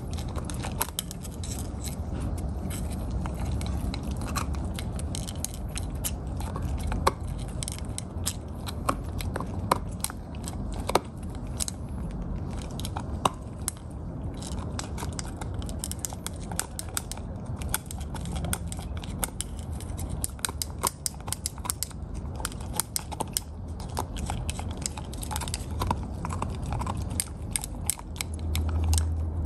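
A puppy gnawing and crunching a cooked lamb rib bone: irregular sharp cracks and clicks of teeth on bone throughout. A low rumble swells about a second before the end.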